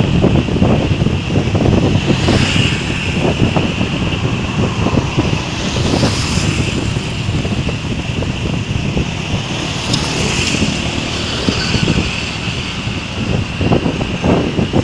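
Wind buffeting hard on the microphone of a motorcycle riding at speed, with the motorcycle's engine and tyre noise running steadily underneath.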